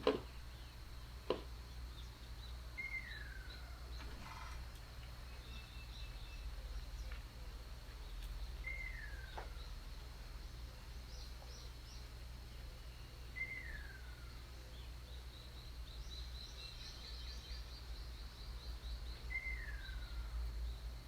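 A bird repeating one clear whistle that slides down in pitch, four times about five seconds apart, with faint high chirps from other birds and a low steady hum underneath.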